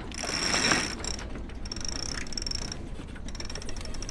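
Mainsail being hoisted on a sailing catamaran: the halyard gear gives a fast, high ratcheting buzz in three spurts with short pauses between pulls, typical of a winch's pawls clicking as the line runs.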